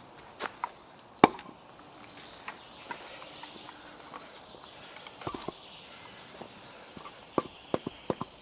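Camp axe striking wood: scattered sharp chopping knocks, the loudest about a second in, with a quick run of them near the end.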